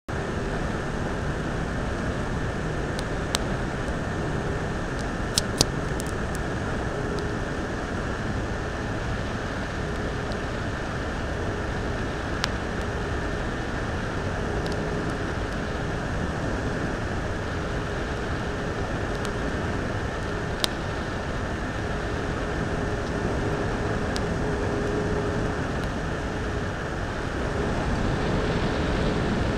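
Hot air rework gun blowing steadily at close range onto a phenolic resin-bonded PCB, with a faint hum under the rush of air. A handful of sharp isolated clicks and pops break through as the heated board crackles and its layers begin to delaminate.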